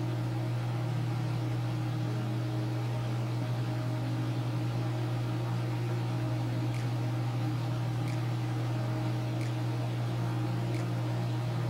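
Steady low hum, unchanging, with a few faint ticks in the second half.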